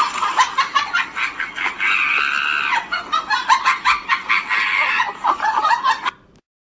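Chicken-like clucking: a fast run of short calls that stops abruptly about six seconds in.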